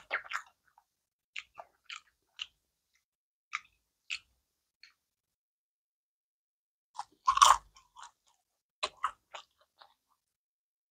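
A person biting into and chewing crisp fried potato, with short crunches about a second apart and one loud bite-crunch about seven seconds in.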